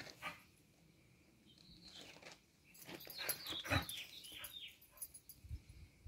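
A dog whining in short, high, falling whimpers, bunched together about halfway through, with a couple of scuffs from its feet on a gravel path.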